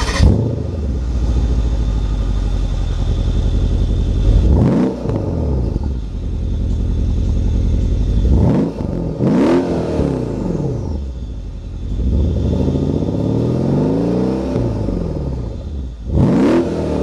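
Mercedes-Benz CL63 AMG's biturbo V8 exhaust idling and being revved about four times, the pitch climbing and falling back with each blip, one longer, held rev in the second half.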